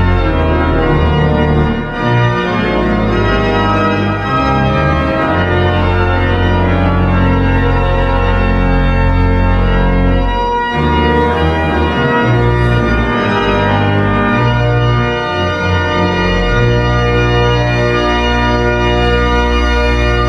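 Cathedral pipe organ playing loud sustained chords over deep bass notes, the harmony shifting every few seconds.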